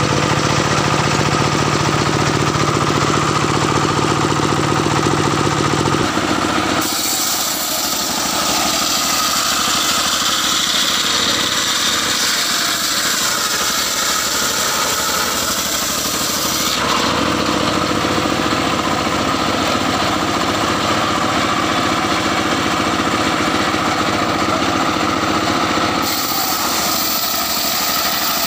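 Engine-driven homemade circular sawmill ripping old mahogany logs: the engine runs steadily under load while the spinning blade cuts through the wood. The sound changes abruptly three times.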